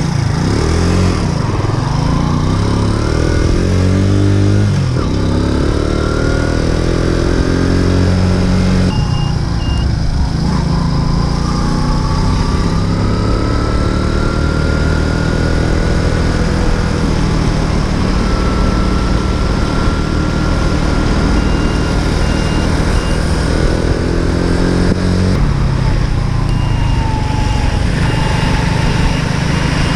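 Racer Alpha RC50 moped's small single-cylinder four-stroke engine pulling away and revving up through the gears, its pitch climbing and then dropping at each shift before settling into a steady cruise, with wind noise over the microphone. A short high beeping repeats now and then.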